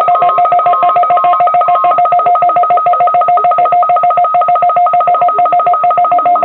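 Loud electronic alert tone: two steady pitches pulsed rapidly, about eight beeps a second, with a brief extra run of beeps over it in the first two seconds. It cuts off abruptly at the end.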